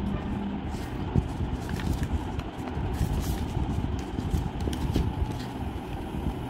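Sheet of paper being folded and creased by hand on a tabletop: scattered soft rustles and light taps over a steady low background rumble.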